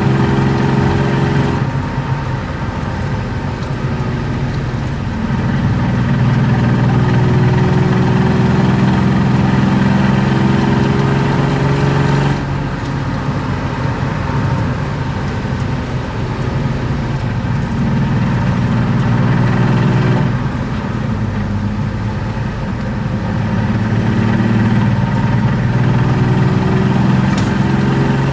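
BMW E36 325i's M50B25 straight-six, breathing through aftermarket headers and a sport exhaust, heard from inside the cabin as the car is driven: it pulls under throttle with the revs climbing slowly, then drops away abruptly on lifting off about twelve seconds in and again around twenty seconds, before building once more near the end.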